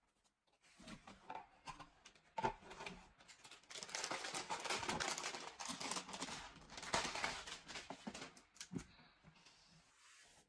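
Packaging crinkling and rustling as it is handled and torn open, with scattered clicks at first and a sharp knock near the end.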